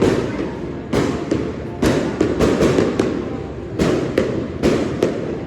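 Aerial fireworks shells bursting in quick succession, a sharp boom every half second to a second, each one trailing off.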